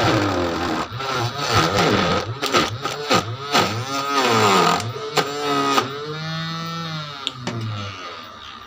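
Small 12 V DC motor spinning a cutter blade inside a homemade plastic-box chilli cutter, chopping green chillies fed into it. Its whine keeps rising and falling in pitch as the chillies load the blade. It runs down and goes quieter near the end.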